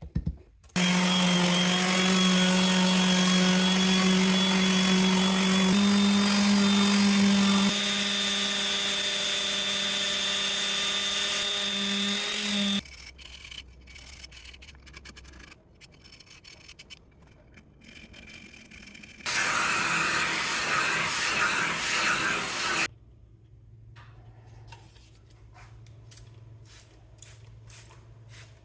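Makita orbital sander with mesh sandpaper running steadily on a wooden cutting board for about twelve seconds, its pitch shifting slightly twice before it stops. Light knocks and handling clatter follow, then a second, shorter and noisier run of about three seconds.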